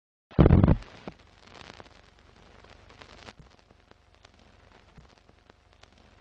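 Sound effect for an animated film-leader countdown. A loud, short hit comes about a third of a second in. Then a faint crackle with scattered pops follows, like old film running through a projector.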